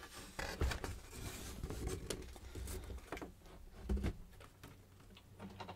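ARP 2600 synthesizer's panel assembly being handled, turned over and set into place: a string of knocks, clicks and scrapes, with the two heaviest thumps just under a second in and about four seconds in.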